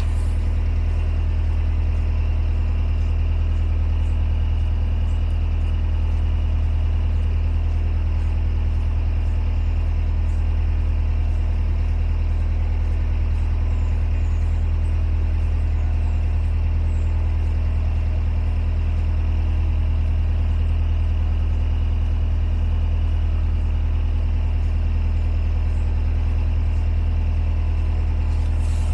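Narrowboat's diesel engine running steadily under way, a low, even drone that does not change.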